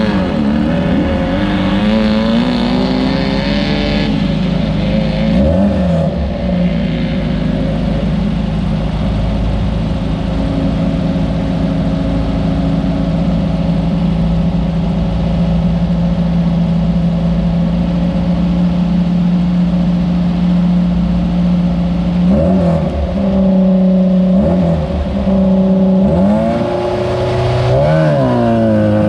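Class 9 off-road race buggy's engine running hard, held at steady high revs for a long stretch, with lifts and re-accelerations near the start and again in the last several seconds, over a steady rushing noise.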